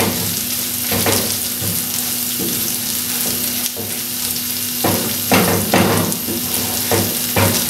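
Beef mince sizzling in oil in a non-stick frying pan while a wooden spatula stirs and scrapes it, the keema fully fried. Loudest scraping strokes come in a cluster about five seconds in and again near the end.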